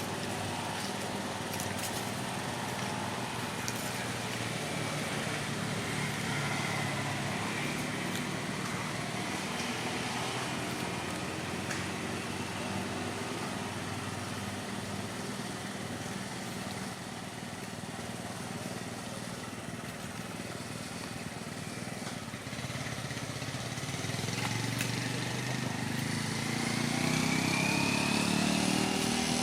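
A motor vehicle's engine running, rising in pitch and getting louder near the end as it speeds up or draws closer.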